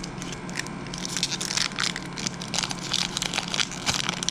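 Foil wrapper of a 2012 Topps football card pack crinkling and tearing as it is worked open by hand. There is a dense, irregular crackle that gets busy about a second in.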